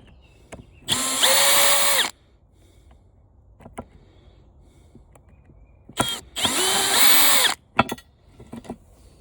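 Cordless power drill backing out screws from a floor fan's housing: two runs of the motor whine, the first about a second long and the second about a second and a half, each rising quickly in pitch and then holding steady, with a few small clicks of metal and plastic between them.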